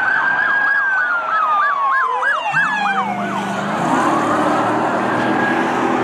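Police car sirens: a slow wail rising and falling, with a fast yelp of about five sweeps a second in the first half, over a bed of traffic noise. A low engine hum joins about two and a half seconds in.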